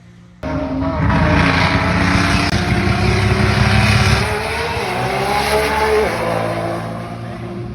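High-powered race car accelerating hard in a roll race, its engine pitch climbing steadily for several seconds, then dropping sharply and easing off near the end. The sound starts abruptly about half a second in.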